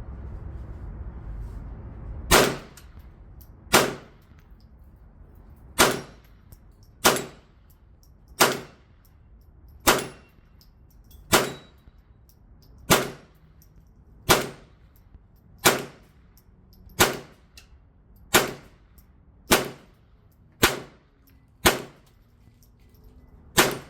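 .22 LR gunshots fired at a steady, unhurried pace, about sixteen in all, roughly one every second and a half, each with a short metallic ring as the bullets strike steel targets at 25 yards.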